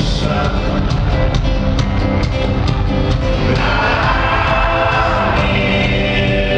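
Loud live music in a concert venue: an amplified band with singing, held notes and a steady beat of about three strikes a second.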